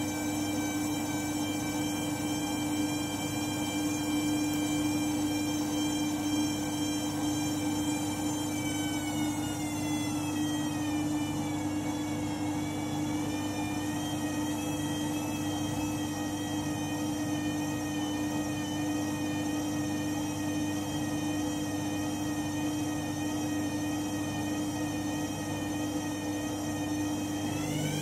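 Candy front-loading washing machine running in an intermediate spin cycle: a steady hum with a high motor whine, the drum turning slowly with water still in it. The whine drops slightly in pitch about a third of the way through and then holds steady.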